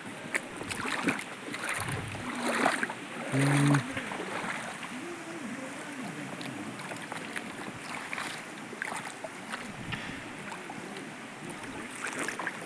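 Water flowing and splashing, with scattered small knocks. A short voice call about three and a half seconds in is the loudest moment.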